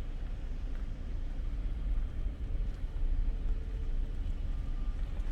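Wind buffeting the microphone outdoors: an uneven low rumble that swells and dips.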